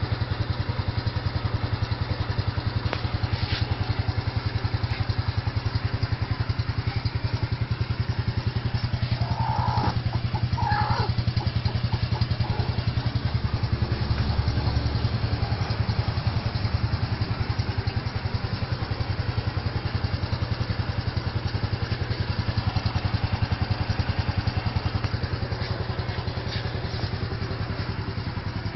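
A small engine running steadily throughout, with two brief higher tones about ten seconds in.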